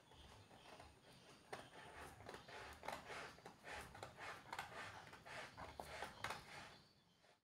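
Utility knife blade slicing through a self-adhesive vinyl wall-sticker sheet and its paper backing: a faint run of short, scratchy cutting strokes that starts about a second and a half in and dies away near the end.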